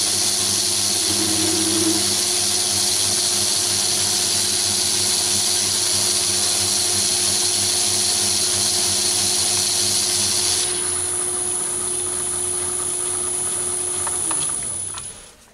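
Myford lathe running under power while a vertical shear tool takes a light finishing cut on an aluminium bar: a steady motor and gear hum with a high cutting hiss. The hiss stops about ten seconds in as the cut ends, and the lathe runs on a few seconds before it is switched off and spins down near the end.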